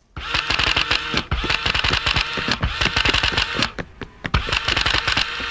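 Rapid mechanical clattering and ticking from a tin toy robot as it moves, starting abruptly and running in quick, dense clicks with two short dips.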